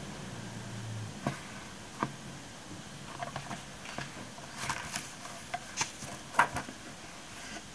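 Paper pages of a small spiral-bound Rollbahn notebook being handled and turned, with scattered light clicks and rustles that come thicker in the second half, the sharpest click a little past six seconds in. A faint low hum sounds during the first second.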